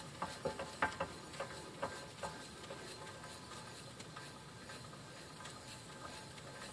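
Wheel hub bearing of a 2001 Toyota Prius, spun by hand with the axle out: a faint sandpaper-like grinding, with a few light knocks in the first two seconds as the hub is pushed round, then an even rough whir as it spins on. The grinding is the sign of a bad bearing.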